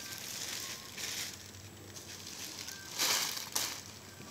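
Thin garbage-bag plastic crinkling as it is pulled off a wet canvas and handled, with a louder burst about three seconds in.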